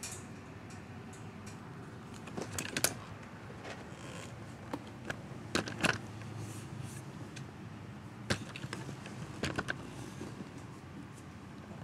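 A kitten's paws and claws tapping and clicking on plastic litter trays as it walks over them, in a few short clusters of light clicks over a faint steady background hum.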